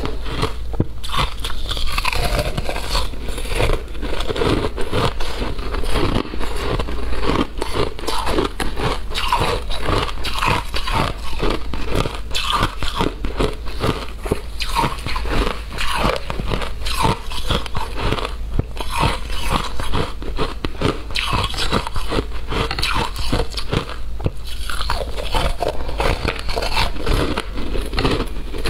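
Frozen coloured ice chunks and shaved ice being bitten and chewed close to a clip-on microphone: a dense, continuous run of sharp cracks and crunches.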